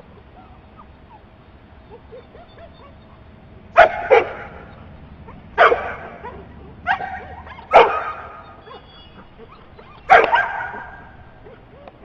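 Search-and-rescue dog barking in loud, sharp barks, about six of them between four and ten seconds in: its trained bark alert at the barrel it has found.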